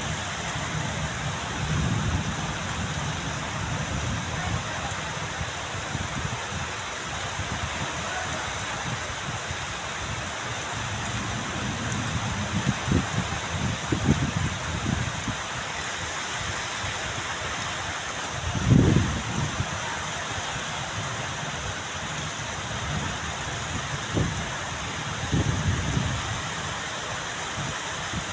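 Steady heavy rain, an even hiss, with several short low rumbles, the loudest about two-thirds of the way through.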